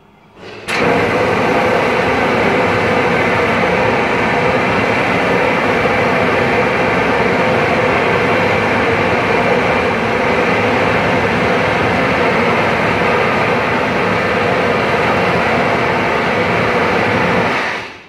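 Steam locomotive No. 40 blowing down its boiler: a loud, steady hiss of steam jetting out sideways, starting suddenly and shutting off after about seventeen seconds.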